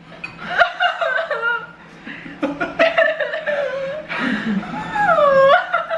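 Pained laughter and whimpering from a person struggling through very spicy noodles, with a long wavering cry about five seconds in.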